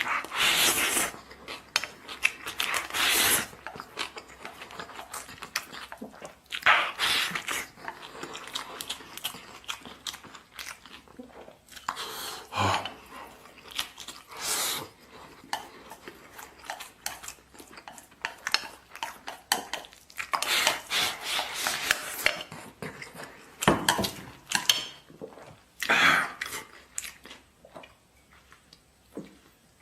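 Close-up eating sounds: a person chewing and smacking mouthfuls of braised pork over rice, in irregular bursts with quieter gaps between.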